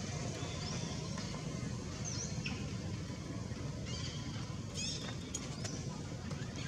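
A few short, high chirps and squeaks from animals over a steady low rumble of outdoor background noise.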